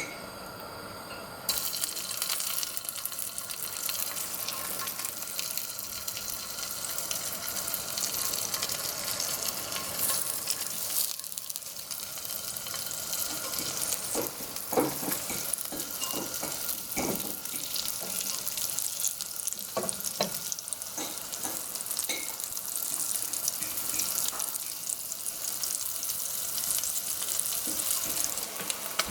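Floured panfish (green sunfish) fillets sizzling steadily in hot oil, with scattered crackles and pops. The sizzle sets in about a second and a half in.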